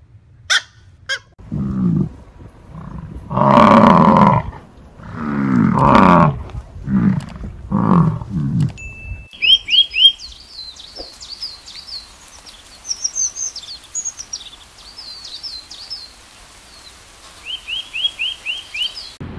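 A dog growls and barks in a run of loud calls. It stops at a sudden cut about nine seconds in, and from then on there are quick, high chirps in runs of three to five over a faint hiss.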